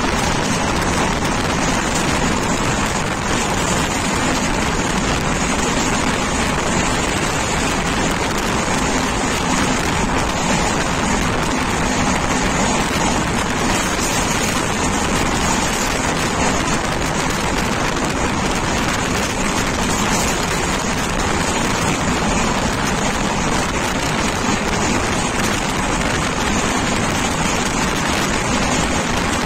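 Express train running at speed, heard from the side of a coach: a steady, loud rush of wind and rumble of wheels on rail.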